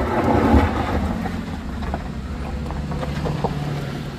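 Suzuki APV minivan's engine pulling under load as it climbs a steep, broken gravel slope and passes close by, with a steady low engine hum and a few sharp clicks.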